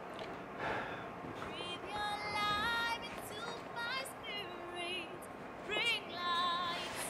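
Background film music carrying a high melody, with notes that step from one pitch to the next and some held with a wobble.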